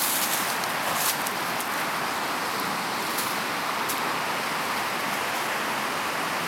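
A steady rushing noise, even and unchanging throughout, with a couple of faint clicks about a second in.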